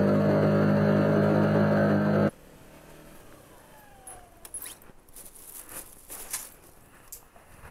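A loud steady drone of several held tones cuts off abruptly a little over two seconds in. After that there are only faint outdoor sounds with scattered sharp clicks and rustles.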